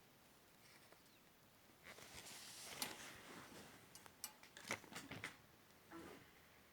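Faint scattered rustling, then a run of light clicks and taps about four to five seconds in: a cat playing with a crumpled paper ball.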